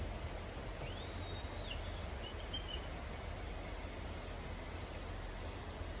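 Steady outdoor background noise with a low rumble, and a faint bird call: a thin whistle about a second in, then a short chirp.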